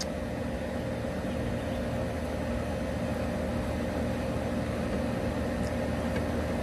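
Outdoor air-conditioner unit running with a steady low hum and a faint whine.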